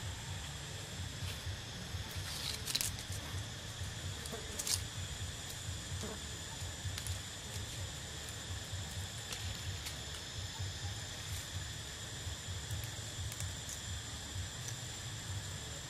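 Steady high-pitched insect drone over a low fluttering rumble, with two sharp clicks about three and five seconds in.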